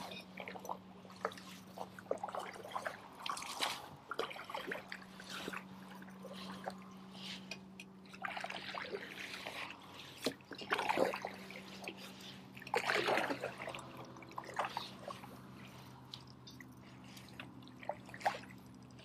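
Kayak paddle strokes in shallow, weedy marsh water: the blade dipping, pulling and dripping in an uneven rhythm, with the louder splashes near the middle. A faint steady hum runs underneath.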